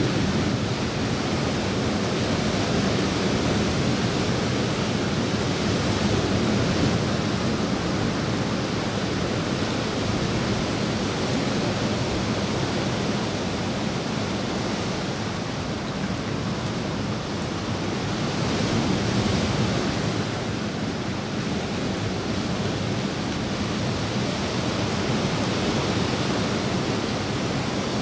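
Steady rain falling on a swimming pool and the surrounding leaves: an even, unbroken hiss that swells slightly twice.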